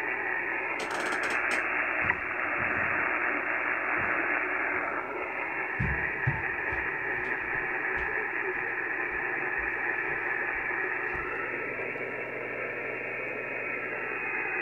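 Shortwave receiver audio from an Icom IC-7600 tuned to the 20-metre band in upper sideband: steady band static and hiss through a narrow 2.4 kHz filter, so it sounds thin and cut off above the voice range. A few low bumps come about six seconds in.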